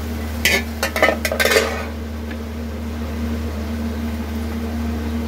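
Metal spatula clinking against an iron kadai, then a steel plate set down over it as a lid: a quick run of clinks and knocks in the first two seconds, followed by a steady low hum.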